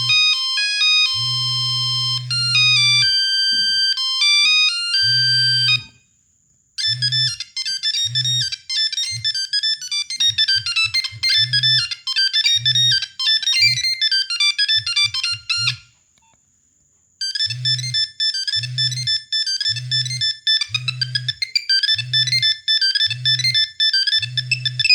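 Nokia 1100 mobile phone playing its monophonic ringtones in turn, as quick beeping electronic melodies. A low buzz pulses along with the notes. The tune changes after short silences about six seconds in and again about sixteen seconds in.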